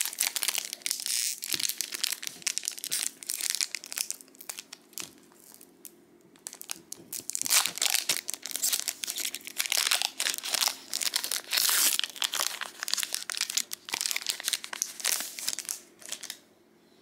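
Wrapper of a Disney Lorcana trading-card booster pack crinkling and tearing as it is opened, a dense run of crackles that dies down just before the end.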